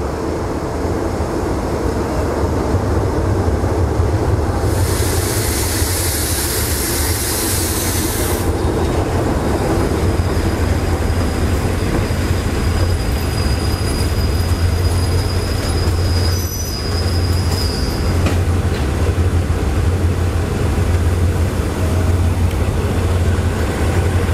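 A diesel-hauled passenger train passing close by: the locomotive's diesel engine rumbles steadily under the run of the carriage wheels on the rails. A loud hiss starts about five seconds in and stops about three seconds later, and a thin high squeal runs through the middle of the pass.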